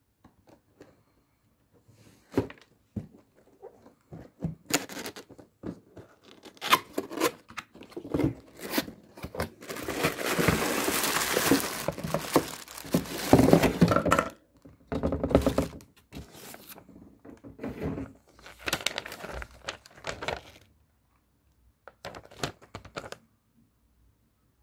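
Handling noises: a string of knocks and thunks, with a couple of seconds of tearing and crinkling in the middle, as of packaging being opened and the hair dryer taken out.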